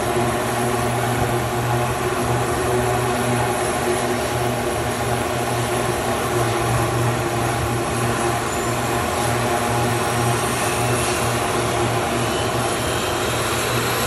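Turbo Commander's Garrett TPE331-10 turboprop engines running steadily on the ground, the five-blade MT propellers turning: an unbroken low propeller drone with a high turbine whine above it.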